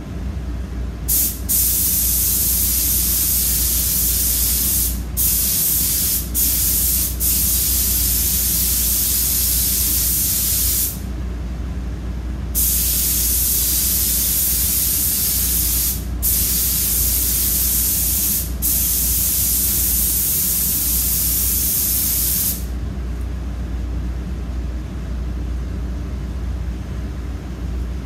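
Compressed-air paint spray gun hissing as it sprays paint in long trigger-held passes, cut by short breaks, and stopping about three quarters of the way through. A steady low hum runs underneath.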